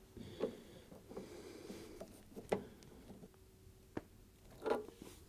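A few faint, scattered metallic clicks and knocks of pliers or a 10mm socket working the nut onto the stud of a washing machine heating element, with a sharper click about four seconds in.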